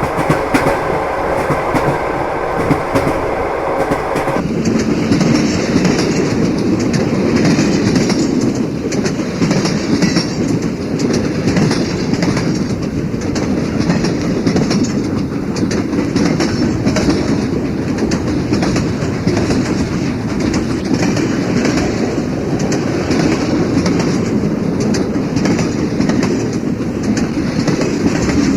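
Train wheels clattering over the rail joints with a steady rumble, a train running on the line. About four seconds in the sound changes abruptly; before that a steady multi-tone hum sits over the rumble.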